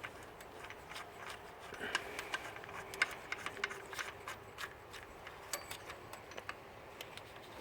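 Faint, irregular light metallic clicks and taps of a 1/2 inch spanner working an alternator mounting bolt loose.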